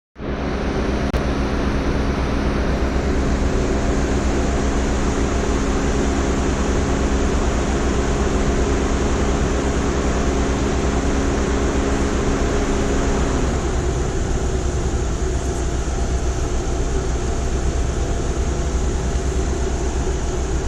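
2002 Toyota Camry engine running steadily after a head gasket repair, with a low hum in it that drops away about two-thirds of the way through.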